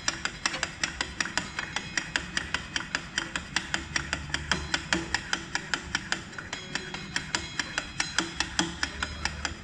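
On-car brake lathe running, a steady even clicking about four times a second over a low hum.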